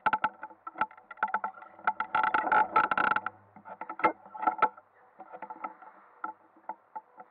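Ice kart running on an indoor ice track, with a dense clatter of knocks and rattles from the kart and its bumper, loudest in the first three seconds. It slows and comes to a stop about five seconds in, leaving only a few scattered ticks over a faint steady hum.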